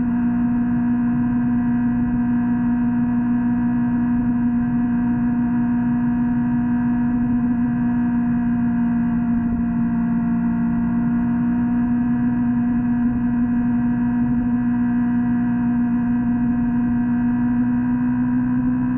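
Kawasaki Ninja motorcycle engine running at a steady speed, a constant drone that holds one pitch.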